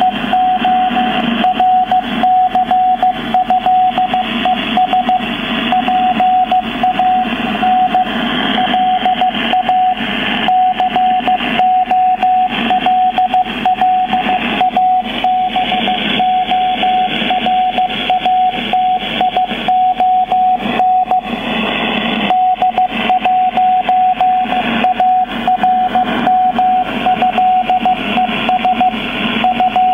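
Morse code from the FAV22 French Navy shortwave station on 6825 kHz, heard through a software-defined radio receiver: a single steady beep keyed on and off in dots and dashes over radio hiss and static.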